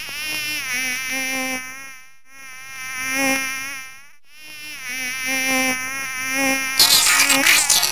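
Mosquito whining in flight: a thin, high buzz that wavers in pitch and swells and fades three times as it passes close and moves away. Near the end, a loud rushing noise breaks in over it.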